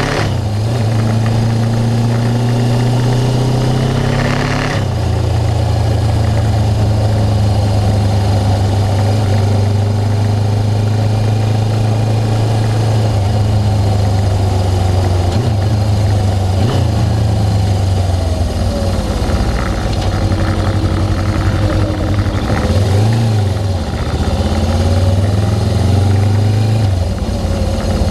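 Suzuki GS500 motorcycle's parallel-twin engine running, its pitch holding steady for stretches and shifting several times, with a brief rise and fall about 23 seconds in.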